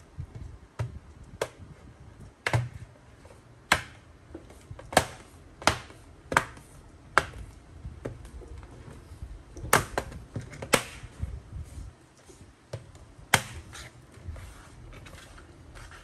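Plastic bottom cover of an HP Victus 16 laptop being pressed down along its edges, its retaining clips snapping into place in about a dozen sharp, irregularly spaced clicks.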